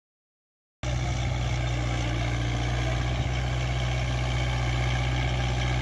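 Dead silence for the first second, then the steady drone of a Kubota MU4501 tractor's four-cylinder diesel engine running at an even speed.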